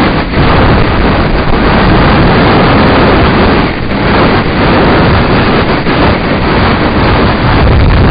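Loud, steady wind rushing over the microphone of a camera on a mountain bike moving fast down a dirt forest track, mixed with the rumble of the tyres on the rough ground.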